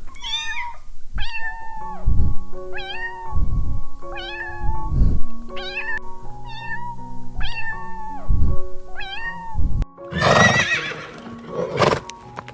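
A cat meowing about eight times, short calls roughly a second apart that rise and then fall in pitch, over background music with a beat. About ten seconds in, a louder, rough, noisy sound takes over.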